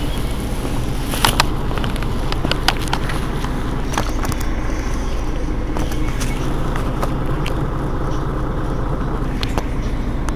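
Mercedes-Benz Citaro G articulated bus engine idling steadily while the bus stands still, with scattered light clicks.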